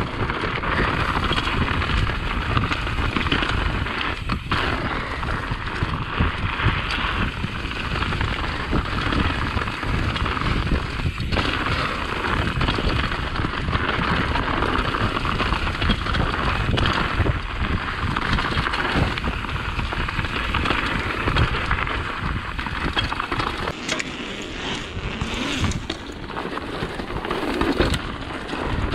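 A mountain bike being ridden over dirt and rocky singletrack: a continuous rushing noise of tyres and air, with the bike knocking and rattling over the rough ground. It eases briefly near the end.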